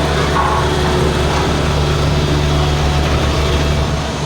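Diesel engine of a Volvo road roller running steadily with a low, even rumble.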